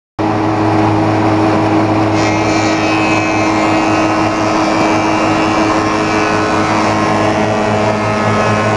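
Four-sided planer-moulder running, with a loud, steady machine hum and whine from its motors and cutter heads as a board feeds through to be profiled into blockhouse log-look siding. A higher whine comes in about two seconds in.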